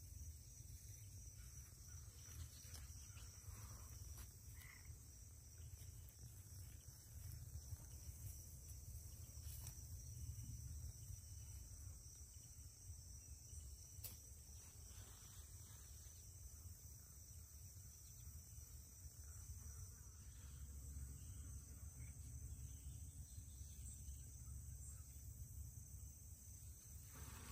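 Faint, steady trilling of crickets over a low rumble.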